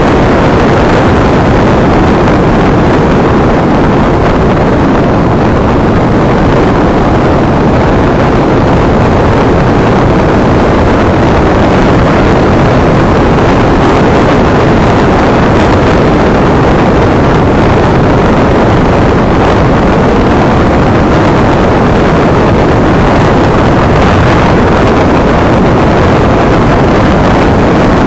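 Honda NC750 motorcycle riding at a steady cruising speed, heard as a loud, even rush of wind and road noise on the bike-mounted camera's microphone.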